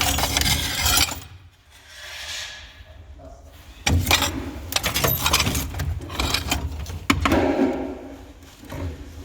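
Metal objects clattering, clinking and scraping as scrap is handled and rummaged through, with a quieter dip a couple of seconds in.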